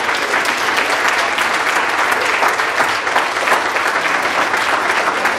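Congregation applauding: many hands clapping steadily.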